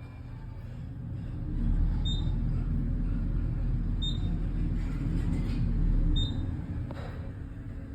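Elevator car travelling between floors: a low rumble builds as the car gets moving and eases off as it slows. Three short high beeps sound about two seconds apart while it moves.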